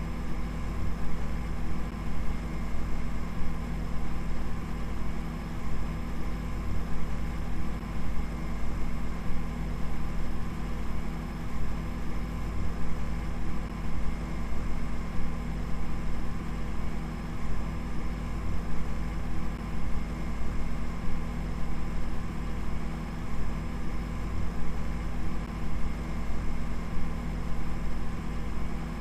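Steady low hum with several fixed tones above it, its loudness flickering rapidly and unevenly.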